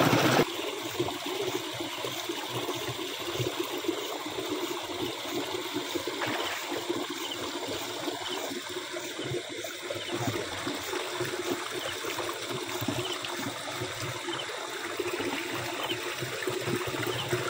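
Shallow running water trickling steadily, with splashing and sloshing from someone wading and handling things in it.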